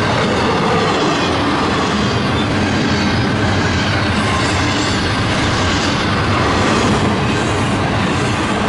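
Eastbound double-stack container freight train rolling past, its wheels running over the rails with a steady loud rumble and clatter.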